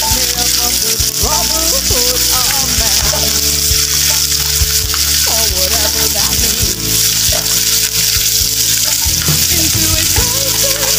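Hot oil sizzling steadily in frying pans as chopped onion is tipped into an oiled pan, next to a mackerel frying in a second pan.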